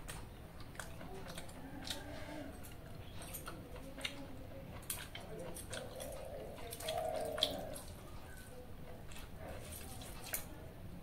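A hand squeezing and mixing water-soaked rice (pakhala) in a steel bowl, with wet sloshing and dripping and many small clicks against the steel bowls.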